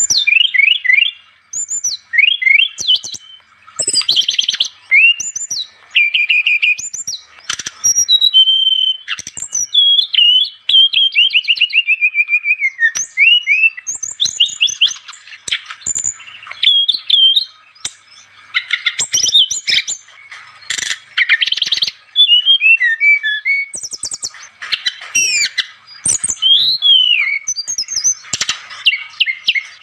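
Brown-chested jungle flycatcher (sikatan rimba dada coklat) singing vigorously: a rapid, varied stream of whistled notes, sliding phrases and trills, in bursts separated by short pauses.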